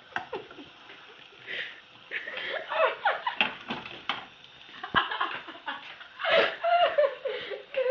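Giggling and laughter with bits of indistinct talk, broken by a few sharp knocks, the clearest one about five seconds in.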